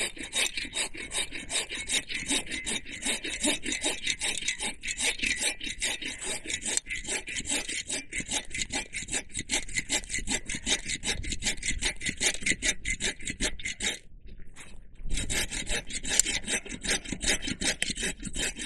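Hand saw with an all-purpose blade cutting through a log in quick, steady back-and-forth strokes. It stops for about a second around fourteen seconds in, then resumes.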